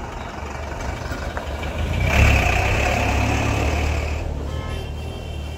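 Minibus engine as the bus drives past close by. It grows loud about two seconds in and fades away after about four seconds.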